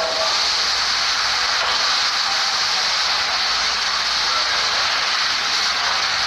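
A steady, loud hiss with no clear voices in it, its level unchanging throughout.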